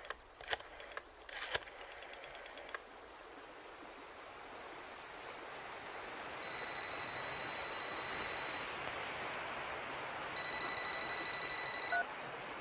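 A mobile phone ringing with a high electronic tone, in two bursts about six and ten seconds in, over the steady rush of a stream. A few sharp clicks come in the first three seconds.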